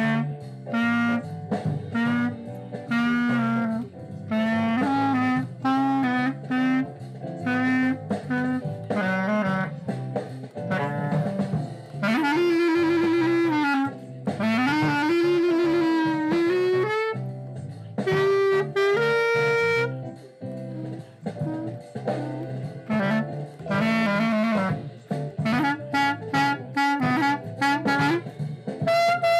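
Glory GLY-PBK Bb clarinet with a generic hard-rubber mouthpiece playing a melody of short separate notes, with a long held note that bends in pitch about twelve seconds in. A quieter low accompaniment runs beneath.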